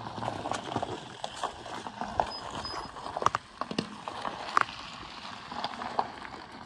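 Loose gravel crunching, with irregular sharp cracks and pops scattered through it.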